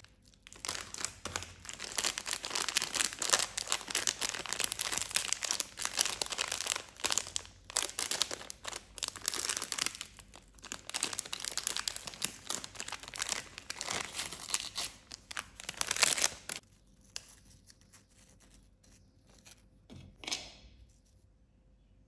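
A foil-lined plastic snack pouch of mini biscuits being crinkled and torn open by hand: a dense run of crackling rustles that stops about sixteen seconds in, followed by only a couple of faint rustles.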